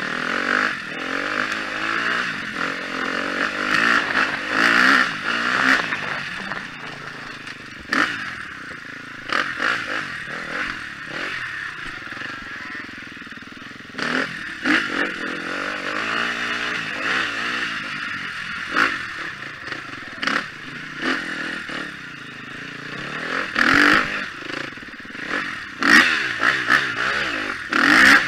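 2013 KTM 250 XC-F single-cylinder four-stroke dirt bike engine, revs rising and falling as the bike is ridden hard over rough ground, with the throttle shut off sharply a few times. Knocks and clatter from the bike hitting bumps come through along with it.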